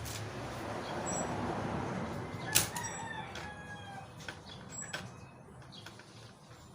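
A rooster crowing, a long raspy crow that falls in pitch at its end, over a steady low hum, with a few sharp clicks.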